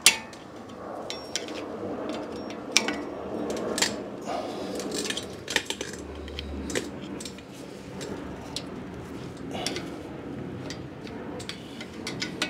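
Screwdriver working and scraping at a front brake caliper's metal hardware, with scattered sharp metallic clicks and clinks.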